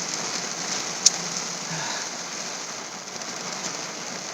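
Rain hitting the roof of a car, heard from inside the car: a steady hiss of rainfall with a single sharper drop hit about a second in.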